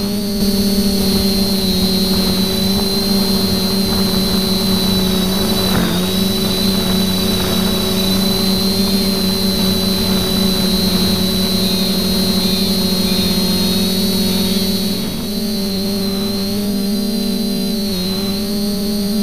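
TBS Discovery quadcopter's electric motors and propellers buzzing steadily in flight, with a high whine over a lower hum, picked up close by the camera on board. The pitch wavers slightly and dips briefly about fifteen seconds in.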